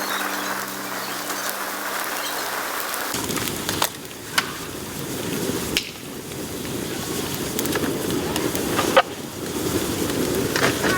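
Bamboo fire burning in a pail can with holes punched near the bottom: a steady low rush of flame with several sharp pops and cracks, starting about three seconds in after a short stretch of music.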